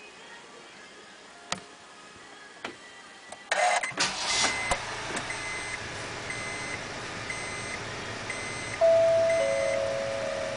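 Honda N-WGN being started: a couple of clicks, then a short starter crank about three and a half seconds in and the engine settling into a steady idle. Over the idle, a dashboard warning chime beeps in short repeated pips, and a louder two-note falling electronic tone sounds near the end.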